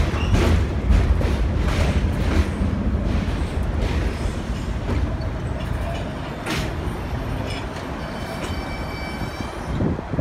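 New York City Subway R143 train pulling away on elevated track. Its wheels clack over rail joints through a heavy rumble that fades as it moves off, and a faint high squeal comes in near the end.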